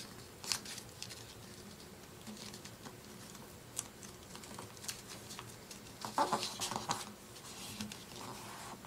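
A sheet of paper rustling and crinkling as fingers fold a flap and press the crease flat. It comes as scattered short rustles and ticks, busier about six seconds in.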